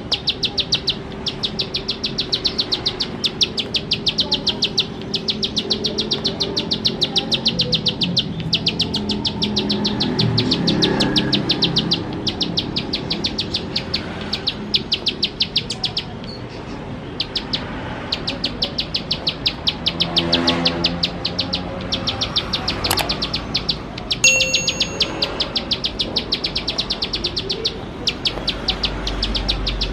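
Plain prinia (ciblek sawah) singing energetically: long trains of rapid, sharp, high ticking notes, each run lasting about a second, repeated over and over with brief pauses.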